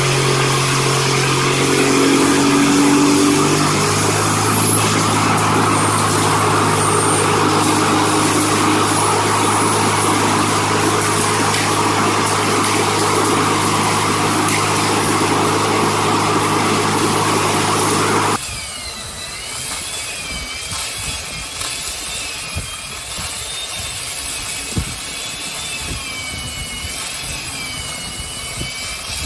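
A heavy machine's engine running steadily under load, its pitch dropping slightly about four seconds in. It cuts off abruptly two-thirds of the way through to a quieter scene with a wavering high whine and a few sharp clicks.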